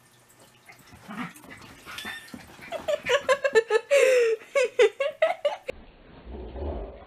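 A dog chasing its tail, letting out a quick string of high-pitched yips and growly whines for about three seconds, with one longer whine that falls in pitch in the middle; the sound stops abruptly near the end.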